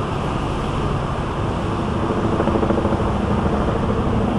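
Steady low drone of a river tour boat under way, engine hum under an even rushing noise of water and air.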